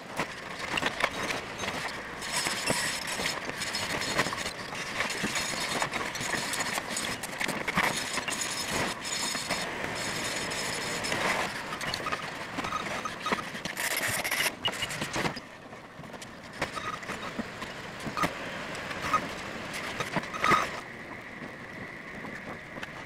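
Construction-site noise: a dense run of rattles, clicks and knocks over a noisy background, dropping quieter about two-thirds through, with a couple of sharper knocks near the end.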